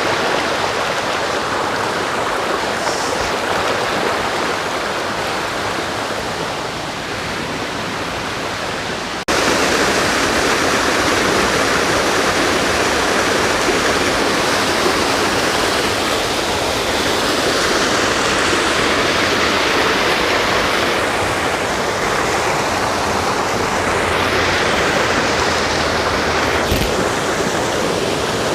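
Waterfall water rushing steadily in a continuous hiss. About nine seconds in it cuts abruptly to a louder, brighter rush of water.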